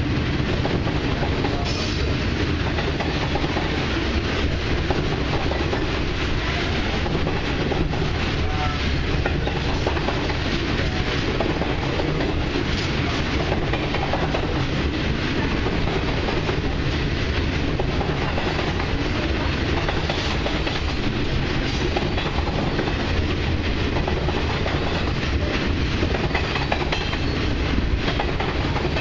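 Freight train of boxcars rolling past at close range: a steady rumble and clatter of steel wheels on the rails.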